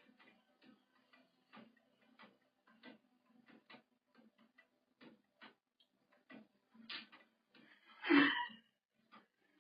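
Irregular light clicks and taps, a few a second, with one louder, longer sound about eight seconds in.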